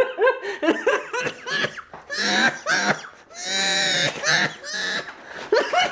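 Men laughing and making non-word vocal noises, with choppy bursts of laughter and one long drawn-out, high vocal sound about three and a half seconds in.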